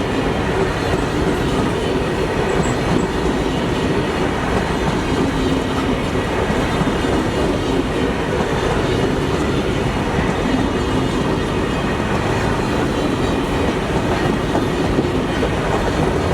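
Indian Railways train running on the track: a loud, steady rumble of wheels and carriages that keeps on without a break.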